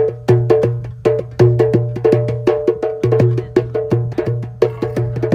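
A metal cooking pot played with bare hands as a drum in a quick, steady rhythm of several strokes a second. Deep pitched thumps alternate with higher slaps.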